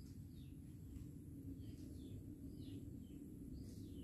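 Faint, small birds chirping: short, high, falling chirps at an uneven pace of about two a second, over a steady low hum.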